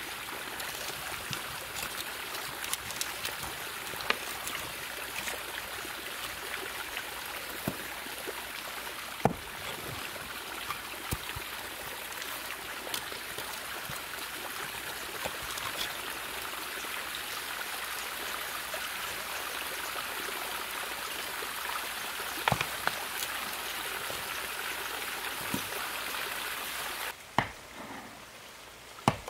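Steady rushing hiss with many scattered sharp crackles as air is driven through a bamboo tube onto a glowing iron bloom. Near the end the hiss cuts off and two sharp knocks sound about two seconds apart.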